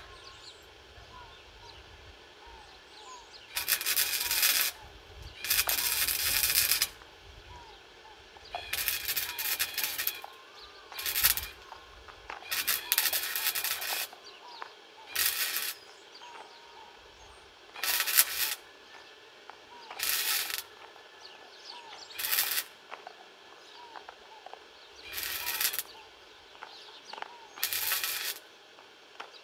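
Flux-core wire welder (Titanium Easy-Flux 125) arc welding steel in a series of short runs: about eleven bursts of crackling, sizzling arc, each from a fraction of a second to just over a second long, separated by pauses.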